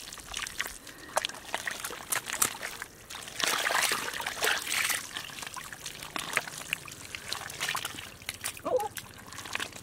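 Hands digging and scooping through thick wet mud: squelching, sucking and splattering, with water trickling. The loudest and wettest stretch comes at about the middle.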